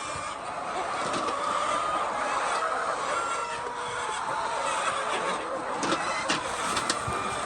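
A large flock of hens clucking together in a poultry house, a dense continuous din of overlapping calls, with a few sharp clicks in the second half.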